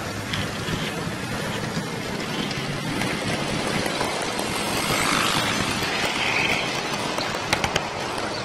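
Model train running on the layout's track: the electric motor and wheels give a steady rumbling whir, with a few quick clicks about seven and a half seconds in.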